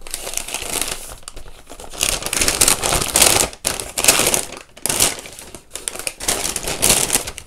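Brown kraft-paper gift wrapping crinkling and rustling in irregular bursts as it is handled and pulled open by hand, loudest in the middle.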